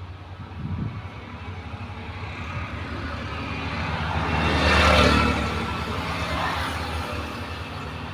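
A motor vehicle passing by over a steady low hum. It grows louder to a peak about five seconds in, then fades.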